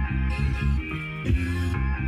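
Background music led by guitar, with a repeating rock-style pattern.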